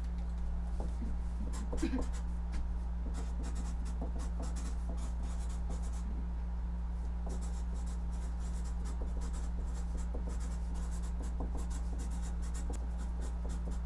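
Marker pen writing on a large paper chart taped to a wall: quick, short scratching strokes, with a brief pause about halfway through, over a steady low hum.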